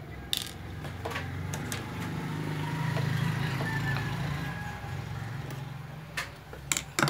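Scattered light metal clicks and clinks from unscrewing and lifting out the feed dog of a Juki DDL-5550 industrial sewing machine. A few come at the start and a cluster near the end, over a steady low hum.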